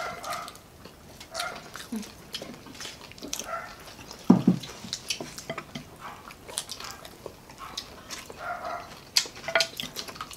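Close-up crunching and chewing of crispy fried food such as chicharon bulaklak, with a short repeated high whine in the background every second or two and one louder low sound about four seconds in.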